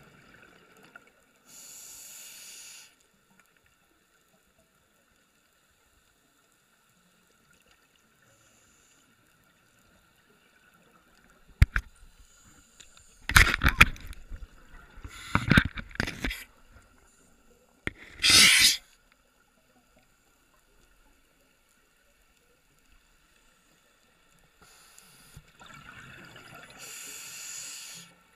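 Lemon shark biting and mouthing an underwater camera housing: a run of loud knocks and crunches through the middle, one longer grinding crunch among them. Near the start and near the end, a scuba regulator breath hisses.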